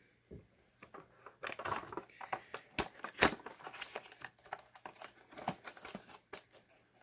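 Cardboard miniatures box with a clear plastic window being opened and handled by hand: irregular clicks, scrapes and crinkling of card and plastic, the sharpest click about three seconds in.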